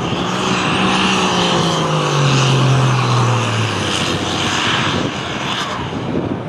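Modified diesel farm tractor's engine running hard at high revs during a pull. Its pitch drops steadily over a couple of seconds, about two seconds in, and a faint high whine sits above it.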